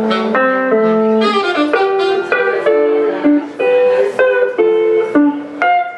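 Saxophone playing a jazzy melodic line over electric guitar accompaniment; the sax notes are held early on and turn shorter and more detached in the second half.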